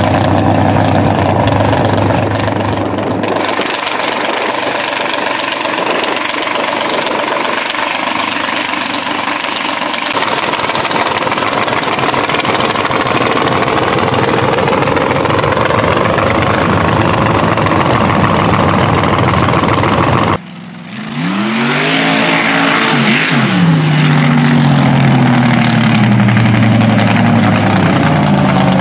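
Mega mud trucks' engines running, in several clips joined by abrupt cuts. A little over 20 seconds in, one engine revs up and down, then runs at a steady pitch that slowly falls.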